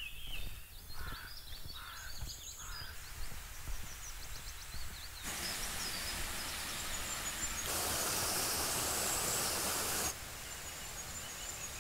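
Songbirds chirping against quiet outdoor ambience. After about five seconds a steady rushing noise cuts in and grows louder about eight seconds in as water running down a small waterfall. It stops abruptly about ten seconds in, leaving the birds again.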